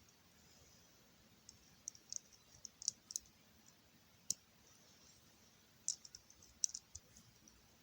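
Faint, sharp light plastic clicks, scattered irregularly in small clusters of a few at a time.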